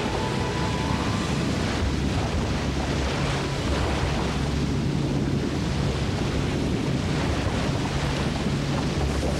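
Big whitewater rapid: a heavy, steady rush of river water pouring and crashing through rocks.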